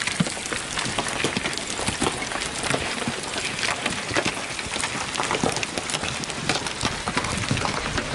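Heavy rain beating on a hard surface: a dense, steady hiss packed with sharp ticks of individual drops.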